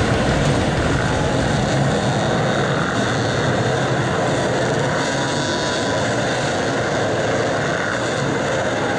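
Many enduro dirt bikes revving together as the pack climbs a rocky hill. Their engines blend into one steady, dense drone.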